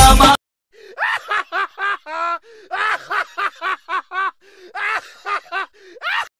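High-pitched laughter sound effect: about fifteen short giggling bursts in three quick runs, starting just under a second in, after music cuts off.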